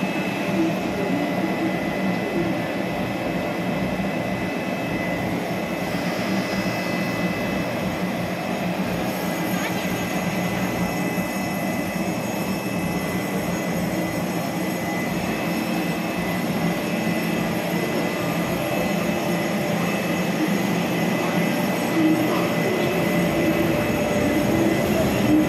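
Taiwan Railway E400-class electric locomotive E403 running as it pulls a train slowly along an underground platform. It makes a steady hum with a thin high whine over it, echoing off the station walls, and grows a little louder near the end as the locomotive draws close.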